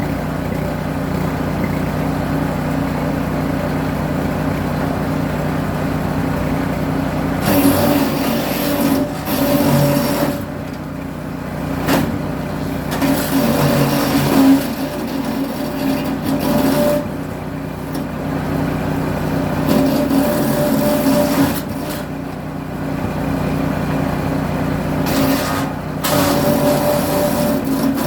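Small engine of a CT319 wood chipper running steadily, with noisy bursts of branches being chipped starting about a quarter of the way in and recurring several times.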